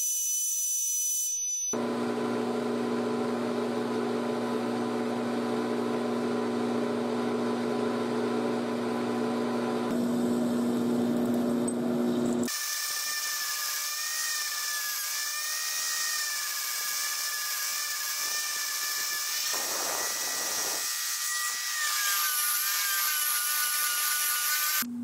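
Metal lathe turning a bar of Grade 5 titanium: a steady machine hum, after a high-pitched whine for the first couple of seconds. About halfway through it changes abruptly to the higher, wavering whine of a Dremel rotary tool polishing the titanium ring, its pitch dipping near the end.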